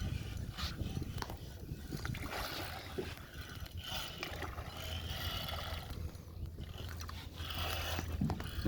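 Wind rumbling on the microphone, with scattered scrapes and clicks from a rod and reel being worked against a large fish.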